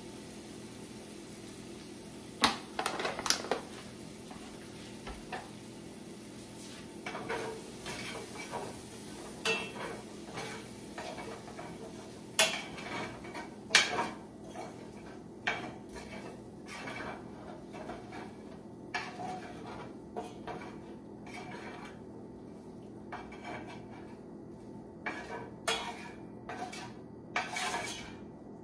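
Spoon clinking and scraping against a skillet in irregular clatters as self-rising flour is stirred into hot oil to start a gravy from scratch, with a faint sizzle underneath.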